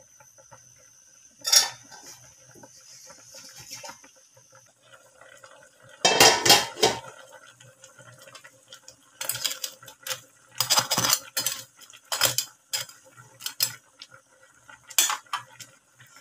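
A utensil stirring crabs in simmering coconut milk in a metal wok, clanking and scraping against the pan in bursts: one about a second and a half in, a longer run around six seconds in, and several more over the last half.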